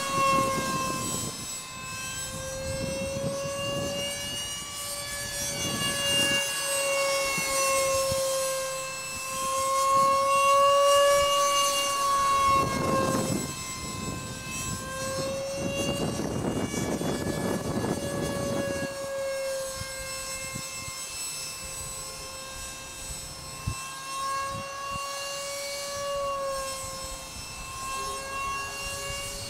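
Radio-controlled model jet flying overhead, its motor giving a steady high whine with several overtones, the pitch wavering slightly as it manoeuvres.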